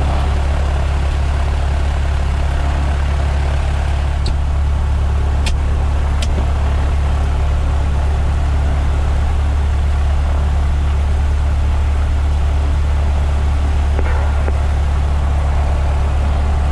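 Cessna 152's four-cylinder Lycoming O-235 piston engine running steadily at low power, a loud even drone with a strong low hum. A few light clicks come about four to six seconds in.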